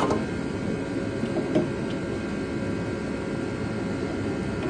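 Steady mechanical drone in the background with a few light metallic clicks in the first second and a half, as a hand wrench is worked onto a transmission bell-housing bolt.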